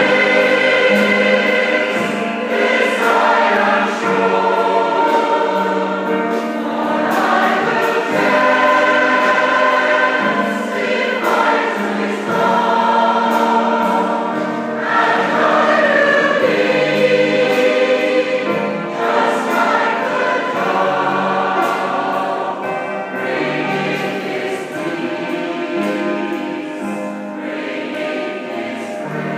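Mixed choir of men's and women's voices singing a hymn together in sustained, held phrases, easing slightly in loudness near the end.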